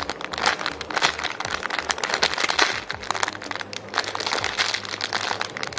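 Clear plastic packaging bag crinkling as hands squeeze the foam squishy sealed inside it: a dense, continuous run of small crackles.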